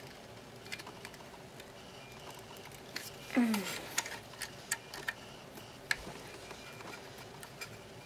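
Light plastic clicks and taps of a Transformers Jetfire action figure's parts being worked by hand during its transformation, with a short grunt falling in pitch about three and a half seconds in.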